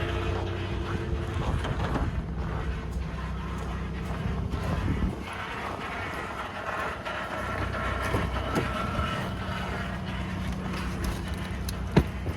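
2021 Ford F-150 PowerBoost running in Park on a −20 °C cold start, with the steady low grinding, cavitation-like noise the owner is chasing, a noise that goes away once the truck is put in reverse or drive. A sharp click near the end.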